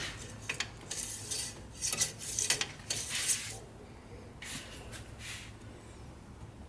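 Small hard parts clinking and scraping as they are handled, in a quick run of short rattles followed by two more a little later.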